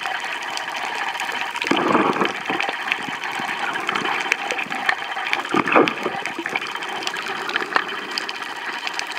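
Water noise recorded underwater while snorkeling: a steady rushing hiss with many small scattered clicks, and two louder surges of water sound about two seconds in and again around six seconds.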